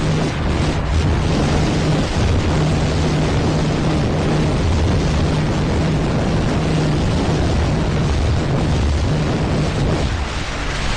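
Single-cylinder motorcycle engine running steadily at high revs on a top-speed run, under heavy wind rushing over the microphone. The engine note eases off a little near the end.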